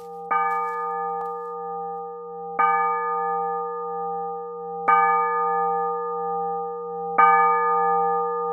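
A bell struck four times, about every two and a quarter seconds, each strike ringing on in long, steady tones over a low, continuous hum.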